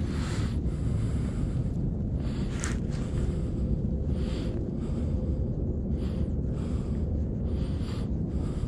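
Wind buffeting the microphone with a steady low rumble, and soft hissing puffs every second or two.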